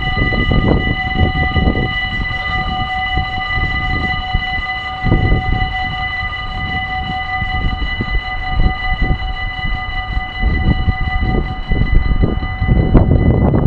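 Dutch level-crossing warning bell ringing continuously while the half-barriers lower, stopping about a second before the end once the barriers are down. Gusts of wind rumble on the microphone underneath.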